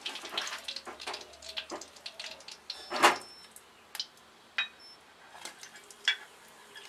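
Wooden spatula scraping and tapping against an aluminium kadai as the leftover frying oil is pushed out into a steel bowl, with scattered light clinks of metal; the loudest knock comes about three seconds in.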